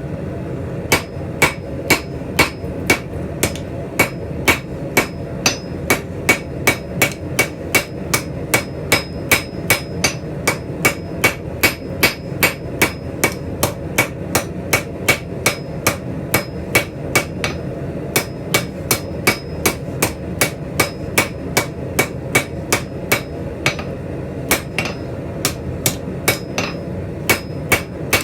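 Blacksmith's hand hammer forging steel tong blanks on an anvil: steady blows at about two to three a second, each with a short metallic ring, and a couple of brief pauses. A steady low background noise runs under the blows.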